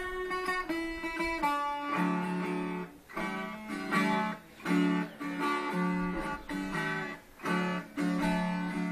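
Acoustic guitar playing a song's instrumental introduction: a plucked single-note melody, then from about two seconds in, strummed chords in a steady rhythm broken by short pauses.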